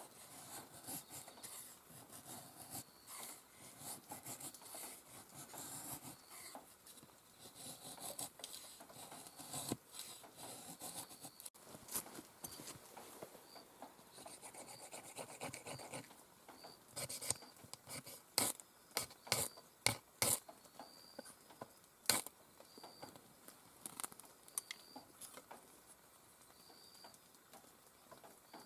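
Wood campfire crackling, with irregular sharp pops and a burst of louder ones past the middle, over a steady hiss of falling rain.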